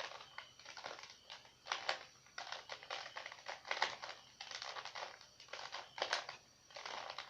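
Plastic Rubik's cube being twisted by hand, its layers turning in quick runs of irregular clicks and clacks.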